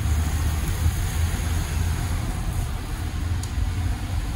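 Self-serve car wash high-pressure wand spraying onto a tire and wet concrete floor, a steady hiss over a low rumble. The wand is set to engine cleaner but is still spraying plain water; the chemical has not yet come through the line.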